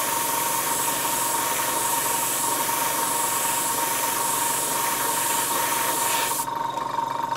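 Airbrush blowing air alone to dry a freshly sprayed coat of grey paint: a steady hiss that cuts off about six and a half seconds in, over a steady whine.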